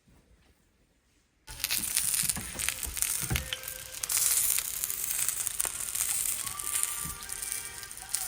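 Ptarmigan breast meat frying in a pan, a dense sizzle with crackling pops. It starts suddenly about a second and a half in, after near silence.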